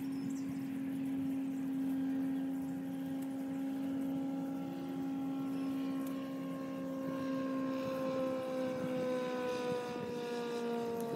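An unseen engine droning steadily, its pitch falling slowly over the last few seconds as it passes.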